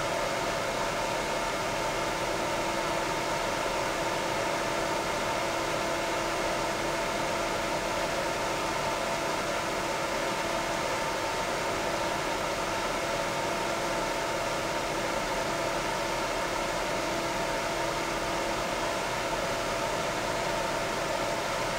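Titan TFD-12025H12ZP 120 mm PC cooling fan running steadily at 12 volts: an even rush of air with several faint steady tones over it.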